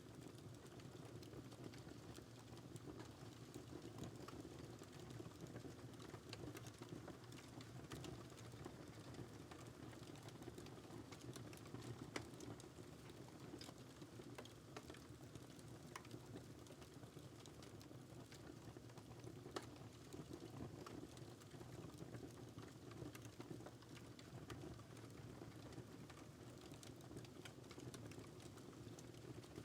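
Faint fire crackling in a fireplace: scattered small pops and snaps at irregular moments over a steady soft low rush.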